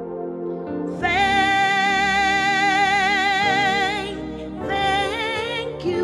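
Slow worship music: a long held note with vibrato swells in about a second in and eases off near four seconds, followed by a shorter held note near five seconds, over a sustained backing.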